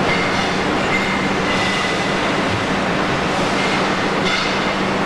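Wheel rim roll forming machine running: a steady, dense mechanical noise with a low hum, and brief high squealing tones now and then.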